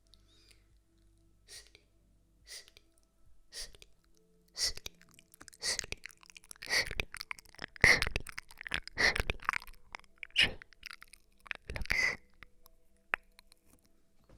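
Close-miked ASMR trigger sounds: a run of short, crisp noises, spaced about a second apart at first, then coming quicker and louder around the middle.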